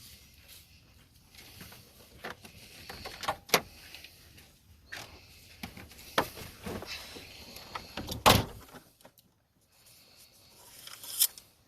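Clicks and knocks of a car's doors and fittings being handled, with one heavy thump about eight seconds in, typical of a car door being shut.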